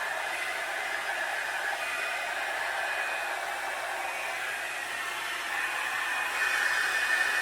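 Revlon One-Step hair dryer brush running steadily, a rush of blown air with a thin high motor whine. It gets a little louder about six seconds in.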